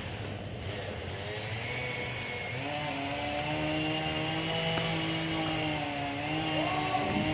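Chainsaw running, its engine pitch sagging low for the first couple of seconds, then climbing back up and holding high, with short dips near the end.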